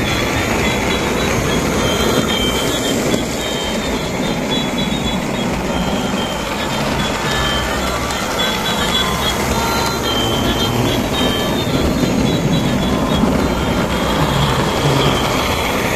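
Battery-powered toy trains running on plastic track: a steady motor whir and wheel rattle, with short high electronic beeps scattered through it.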